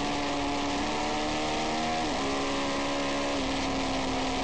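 Triumph Daytona 650's inline-four engine running under way, heard from an on-bike camera, its note climbing slightly before dropping in pitch about halfway through and holding steady, over a constant rush of wind.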